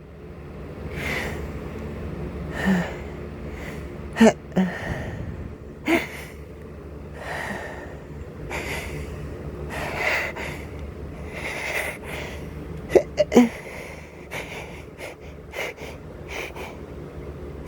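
A man's wheezy, gasping breaths during a pollen allergy attack, repeating about every second and a half, with a few short sharp catches in the breath, over a steady low hum.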